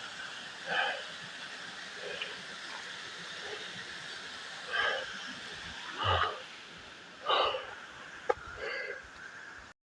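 A runner breathing hard while climbing a steep trail: a handful of heavy, irregular breaths over a faint steady hiss. The sound cuts off suddenly near the end.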